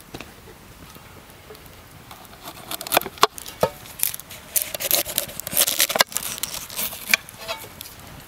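Onion being peeled with a knife over an enamel plate: the dry papery skin crackles and rustles, with sharp clicks of the blade against the plate, mostly in the middle few seconds.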